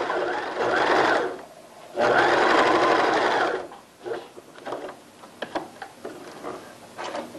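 Domestic sewing machine running a long straight basting stitch, set to its longest stitch length with no backstitch, for gathering knit fabric. It sews in two short runs, the second starting about two seconds in, then gives way to light scattered clicks.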